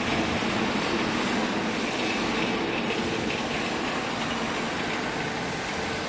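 Steady mechanical running noise of factory machinery, a continuous dense hum and rumble at an even level.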